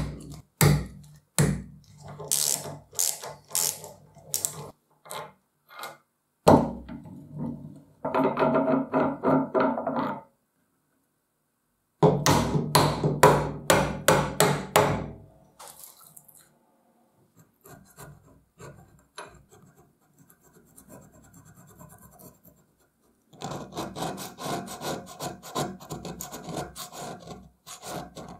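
Socket-wrench ratchet clicking and metal knocks as bolts are undone on the cast-iron cylinder head of an old piston air compressor, with one heavy knock about six seconds in. Midway comes a run of quick hammer taps on the head. Near the end a steel blade scrapes old gasket off the head face.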